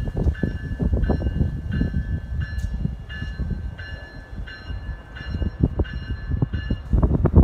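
Capitol Corridor passenger train rolling past with a low rumble and irregular clacks from its wheels on the rails, while a bell rings steadily about twice a second.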